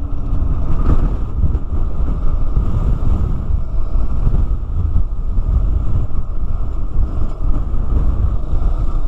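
Strong coastal wind battering the microphone: a loud, dense low rumble that never lets up.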